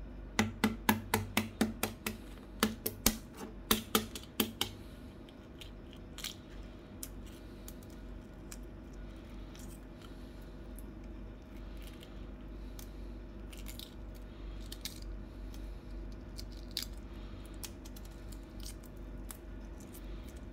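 Shell of a steamed, seasoned egg being tapped sharply about a dozen times in the first four seconds to crack it, then faint small crackles as the cracked shell is picked off with the fingers.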